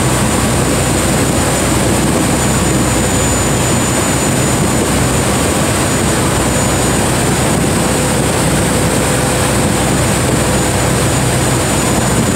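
Steady, unbroken roar of Niagara's American Falls mixed with a tour boat's engine running. There are no breaks or changes.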